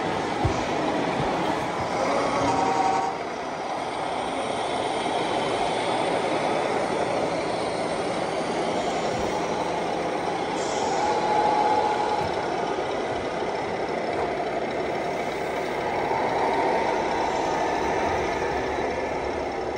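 Radio-controlled scale trucks' onboard sound modules playing simulated diesel truck engine running sounds, a steady mechanical noise.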